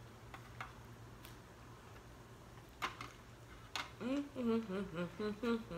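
Chewing fresh jalapeño: a few sharp crunching clicks from the mouth, then about two-thirds of the way in a woman's wordless humming "mmm" sounds in short bends of pitch.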